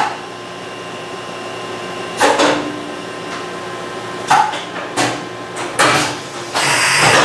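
Excel vertical machining center's automatic tool changer cycling to load a new tool: about five mechanical clunks spread over several seconds and a short hiss near the end, over the machine's steady hum.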